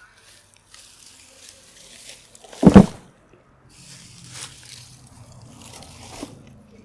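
Hands pulling weeds and old herb plants out of a raised bed: roots tearing from the soil and dry stems crackling and rustling as the clumps are pushed into a plastic pot. A single loud thump a little under three seconds in.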